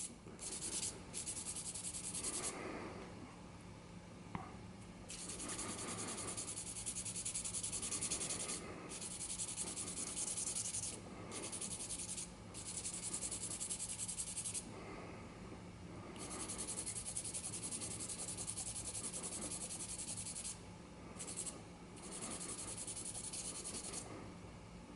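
Fine 600-grit wet sandpaper rubbed by hand over a vulcanite pipe stem, taking off the last of the brown-green oxidation: a faint, quick scratchy rasping in stretches of a few seconds, broken by short pauses.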